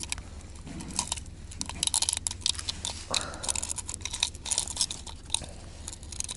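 Irregular sharp clicks and metallic rattles of a minnow wobbler's treble hooks being worked loose from a pike's mouth. The lure is a copy of the Megabass Vision 110 jerkbait.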